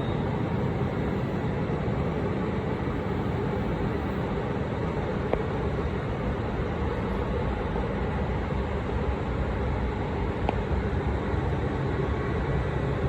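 KiHa 201 series diesel railcar running, a steady rumble of engine and rolling noise, with two faint clicks.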